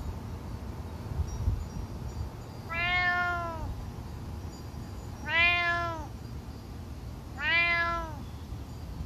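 A cat meowing three times, each call just under a second long, arching up and down in pitch.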